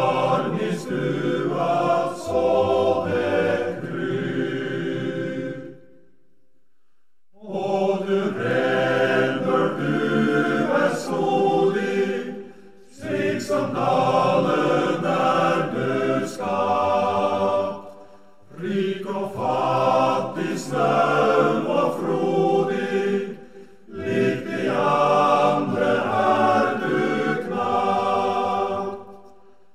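Background choral music: voices singing in phrases of about five seconds, each followed by a brief pause.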